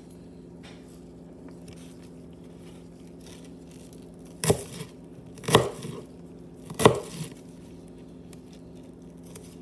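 Kitchen knife chopping onion on a plastic cutting board: three hard strikes roughly a second apart near the middle, each with a lighter knock after it, over a steady low hum.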